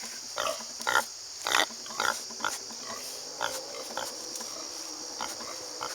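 Pig grunting in short separate grunts, about two a second at first, then fewer and further apart.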